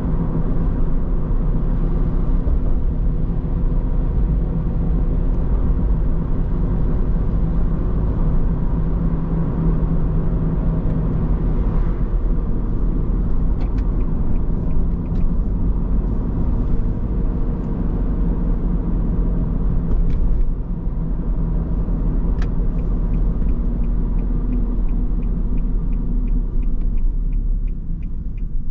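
Steady road and engine rumble heard from inside a moving car. The noise eases about twenty seconds in, and a couple of seconds later a fast, regular ticking starts.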